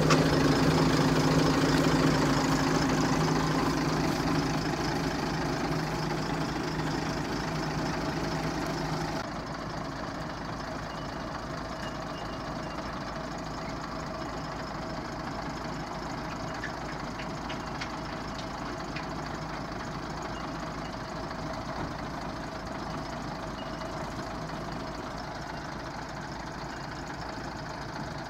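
Volvo G88 truck's diesel engine idling steadily. It is loudest at first, fades, and drops to a quieter steady idle about nine seconds in.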